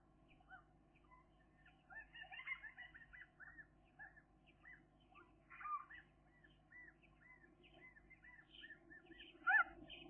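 Birds calling: a run of short rising-and-falling notes, several a second, with a louder call near the end, over a faint steady hum.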